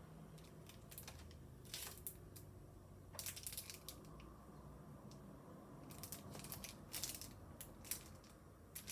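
Plastic packaging and paper crinkling and rustling as stationery items are handled, in short irregular spells, loudest about three and a half and seven seconds in.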